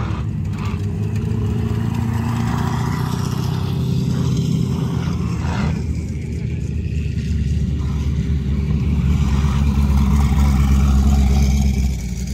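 Off-road vehicle engine running steadily with a low rumble, building toward the end and dropping off sharply about twelve seconds in.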